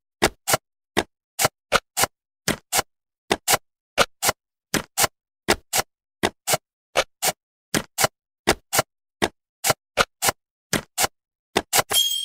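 Jigsaw-puzzle click sound effect: sharp clicks in pairs, about one pair every three quarters of a second, as puzzle pieces snap into place. Right at the end a bright jingle starts.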